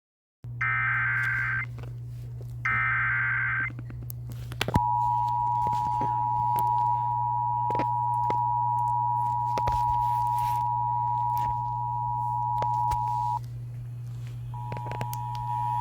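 Emergency Alert System alert tones: two bursts of the buzzing SAME digital header, then the steady two-tone attention signal held for about nine seconds. It breaks off, returns about a second later, and a low hum and scattered crackling clicks sound underneath.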